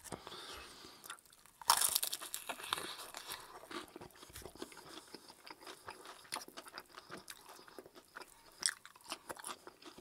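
Crisp fried-chicken breading (KFC Extra Crispy) crunching as it is bitten, chewed and pulled apart close to the microphone. A loud crunch comes about two seconds in, followed by a run of smaller crunches and crackles.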